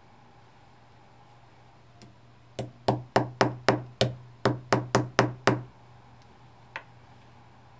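Small brass-headed hammer tapping a split pin in a stainless steel watch bracelet held in a bracelet-holder block. There are about eleven quick, sharp metallic taps, roughly three to four a second, starting between two and three seconds in and stopping about five and a half seconds in.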